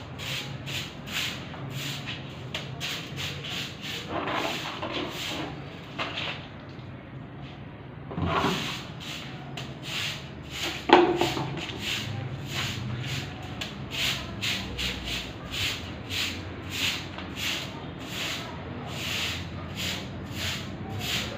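Short hand broom sweeping a brick floor, quick swishing strokes about two a second. One louder knock about halfway through.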